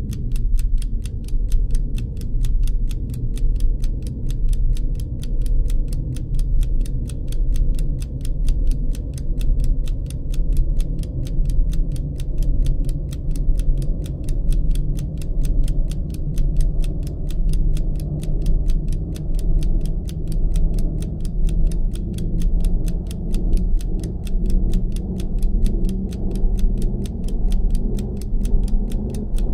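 Stopwatch ticking sound effect: fast, even ticks over a low background hum that swells and fades about every second and a half.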